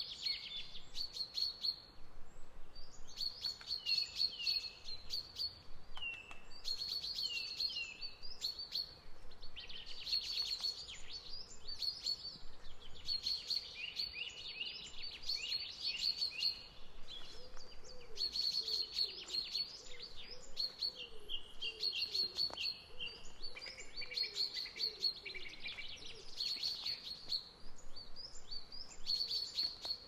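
Woodland birds singing in spring: several overlapping songs of quick high chirps and trills, each phrase repeating every second or two. In the middle stretch a softer, lower repeated call from another bird joins in.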